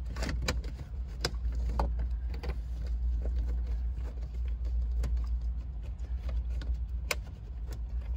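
Plastic triple gauge pod being pressed and seated onto the dashboard: scattered clicks and knocks, the sharpest about seven seconds in, over a steady low rumble.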